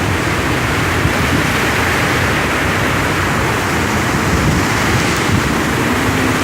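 Hurricane-force wind with driving rain, a loud, steady hiss, with the gusts buffeting the microphone in a low rumble.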